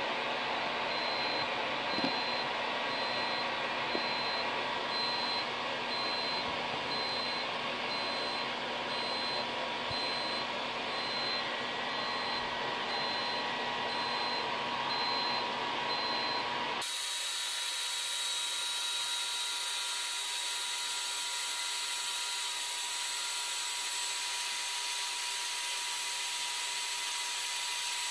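Air blower running steadily on an intercooler test rig, a continuous rush of air with a faint steady hum. About two-thirds of the way through, the sound cuts abruptly to a thinner, higher hiss.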